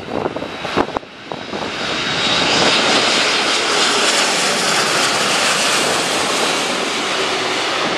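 Jet engines of a four-engine Boeing 747-8 airliner passing low overhead on approach, gear down. After a couple of sharp knocks about a second in, the loud, steady jet noise swells over the next second and then holds.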